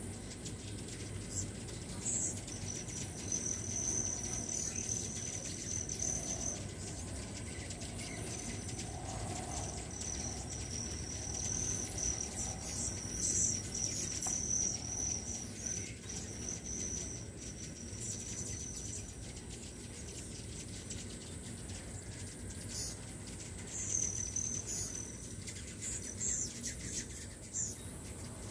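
Dozens of hummingbirds swarming feeders: thin, high squeaky calls, some drawn out for a few seconds, and short sharp chips, over the steady low hum of many hovering wings.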